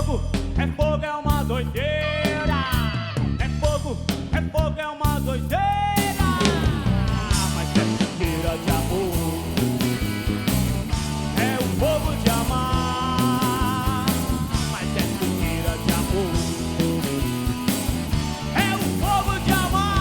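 Instrumental break of a band's song: lead guitar playing melodic lines over bass and drums with a steady beat, the playing growing fuller about six seconds in.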